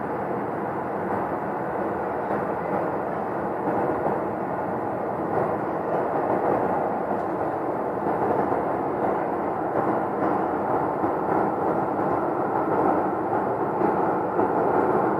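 A loud, continuous noise with no clear pitch, swelling a little over several seconds, from an unidentified source that the person recording finds strange and says has been going on for a really long time.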